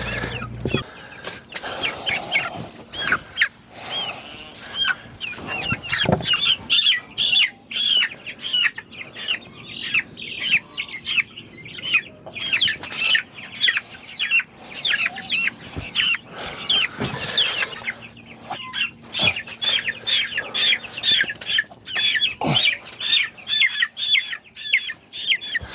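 A group of young meat chicks peeping rapidly and continuously in short, high calls, with occasional knocks and rustles in between; the chicks are storm-soaked and chilled.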